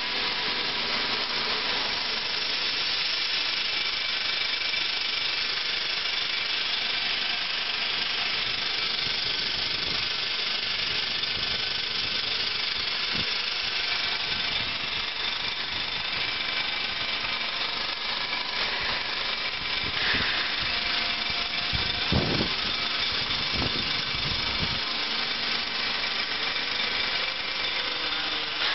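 Rotary vibrating sieve running steadily, its vibrator motor buzzing and soybeans and rice rattling across the shaking wire mesh as the beans are screened from the rice. A few dull thumps come about three quarters of the way through.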